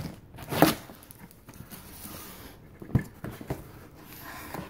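Cardboard shipping box being pulled open by hand: flaps rustling and scraping, with a sharp crack about half a second in and a dull knock about three seconds in.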